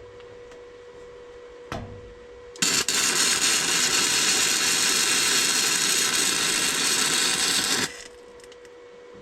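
MIG welder arc running a bead for about five seconds, starting a little under three seconds in: a steady, loud crackling hiss with the power just turned up. A low steady hum from the welder is heard before and after the arc.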